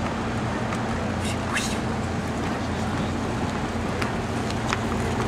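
City street ambience: a steady traffic rumble with indistinct voices and a few scattered short clicks.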